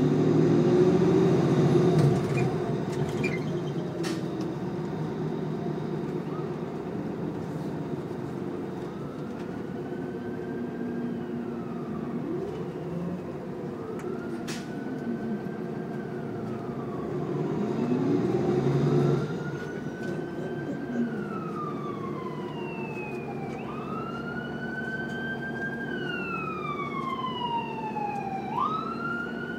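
A 2017 NovaBUS LFS bus's Cummins L9 diesel engine running as the bus drives, heard from inside the cabin. It grows louder about a second in and again around eighteen seconds. From about nine seconds in, an emergency vehicle siren wails outside, rising and falling every few seconds, and its cycles turn quicker and fuller near the end.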